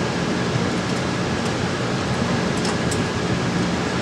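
Steady rushing machinery noise with a low hum underneath, with a few faint light clicks as the generator's bolted access panel is handled and taken off.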